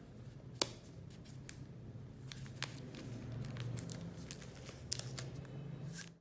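A new smartphone in its plastic protective film being handled: light crinkling of the film and a few sharp clicks from fingers on the phone, over a low steady hum.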